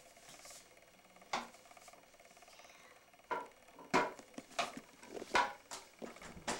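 Light plastic taps and knocks as a small child's dustpan and brush strike a toilet, emptying dust into the bowl: a single tap about a second and a half in, then a quick string of irregular taps over the last three seconds.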